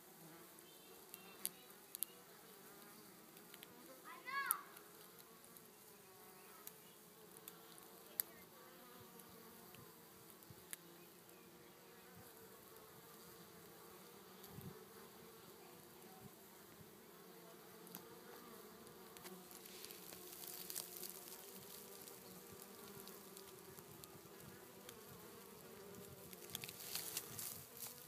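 Honeybees flying at a hive entrance, a faint steady hum of many wingbeats that grows louder toward the end. A brief chirp sounds about four seconds in.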